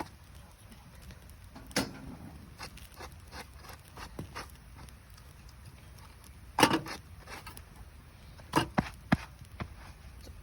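Campfire of damp, rain-soaked gathered firewood crackling, with a sharp pop about two seconds in, the loudest pop past the middle, and a quick run of three pops near the end.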